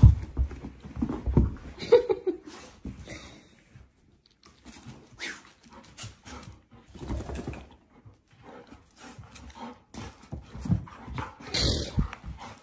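Two golden retrievers play-fighting and tugging at a toy: scuffling, mouthing and short dog noises in irregular bursts, with a brief lull about four seconds in and a louder scuffle near the end.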